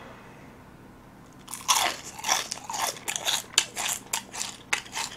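A person biting into and chewing extra-crispy fried chicken cut into small pieces. After a short quiet start, crisp crunches of the fried crust come irregularly, several a second, from about one and a half seconds in.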